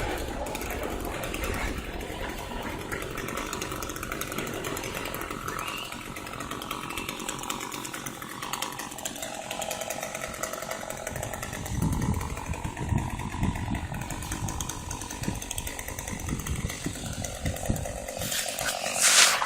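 Chainsaw running throughout, its engine pitch drifting up and down. A brief, louder rush of noise comes near the end.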